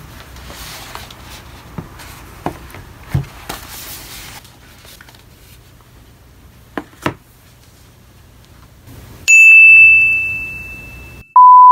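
A few light knocks as small boxes are set down on a wooden desk. About nine seconds in comes a loud bell-like ding that fades over about two seconds, and near the end a loud, steady electronic beep tone starts.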